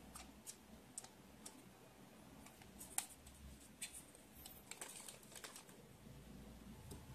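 Faint handling sounds of a plastic jump rope and its clear plastic bag: a few light clicks, one sharper click about three seconds in, then the crisp crinkle of the plastic packaging.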